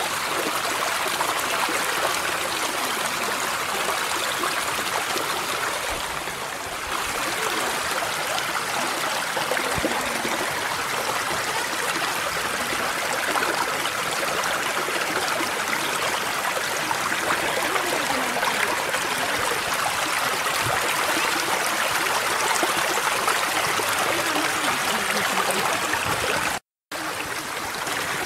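Mountain stream running over rocks: a steady, even rush of water that holds constant. It cuts out for a split second near the end.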